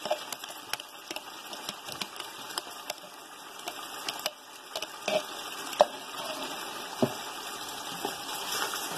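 A wooden spoon stirring chicken and whisked yogurt into masala in a metal cooking pot: irregular knocks and scrapes of the spoon against the pot over a steady sizzle of the frying.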